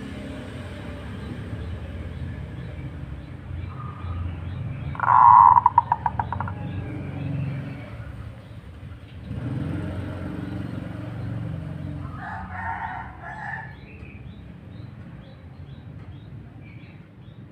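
Two loud bird calls over a steady low rumble. The first, about five seconds in, ends in a quick pulsing trill; the second comes near thirteen seconds.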